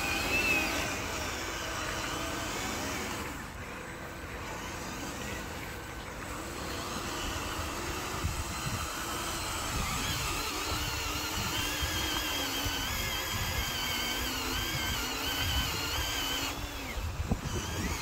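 Small electric motors and gearboxes of radio-controlled model dump trucks whining, the pitch wavering up and down as the throttle changes while one truck pulls the other out of the mud. A low rumble runs underneath.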